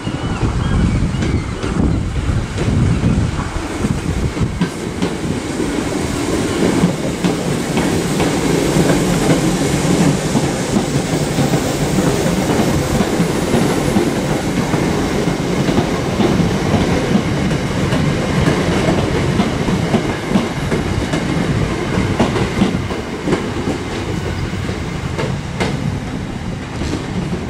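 Royal Mail Class 325 electric postal multiple unit passing through the station, a steady rumble of wheels on rail with clicks as the wheels cross rail joints. It eases a little near the end as the train draws away.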